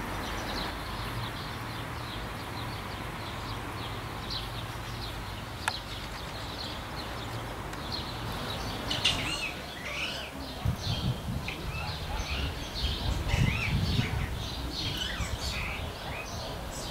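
Birds chirping over a steady outdoor hiss, sparse at first and much busier from about halfway through, with some low rumbling in the second half.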